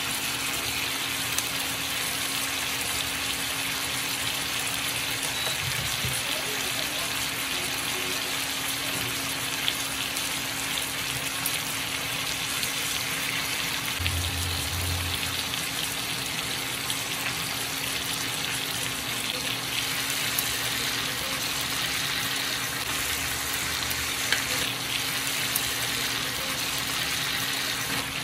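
Marinated chicken sizzling steadily in its juices on a grilling pan over an induction cooker, with a steady low hum underneath. There are a few light knocks, one about halfway through as tongs move the pieces.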